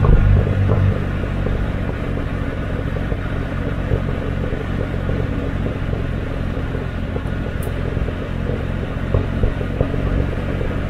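Exhaust of a 1971 Opel Commodore A GS's 2.8-litre straight-six, heard right at its twin tailpipes while the car is driven. It is louder for about the first second, then settles into a steady, even drone.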